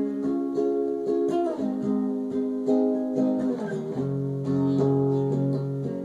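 Guitar playing a slow instrumental passage, picked chords held and changing about once a second, with a low bass note coming in about four seconds in.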